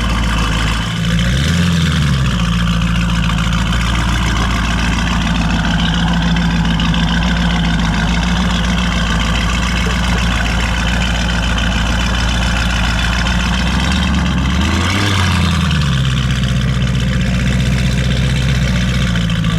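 Lamborghini Urus's twin-turbo V8 through a Novitec aftermarket exhaust, idling loud and steady. Two brief rev blips, one about a second and a half in and one near fifteen seconds, rise and fall in pitch.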